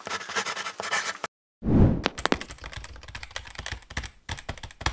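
Marker scratching across paper in quick strokes, then, after a brief gap, a soft thud and laptop keyboard typing, a fast, uneven run of key clicks.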